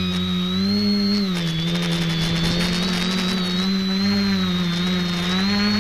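Electric multicopter's brushless motors and propellers running in flight, heard from the camera mounted on the craft: a steady hum with a thin high motor whine above it. The pitch wavers up and down as the throttle is corrected, dipping a little over a second in and rising again near the end.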